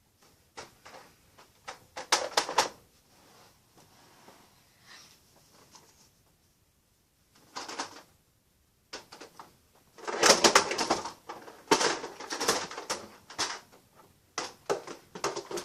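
Rummaging through things by hand: bursts of clattering knocks and rustling, sparse at first and loudest from about two-thirds of the way in.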